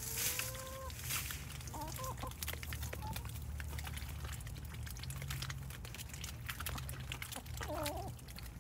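Ducks and chickens feeding from a tub of water hyacinth: a dense run of small wet clicks and splashes as bills dabble and peck in the water and leaves. A few short fowl calls break through, a held one at the start and a wavering one near the end, over a steady low hum.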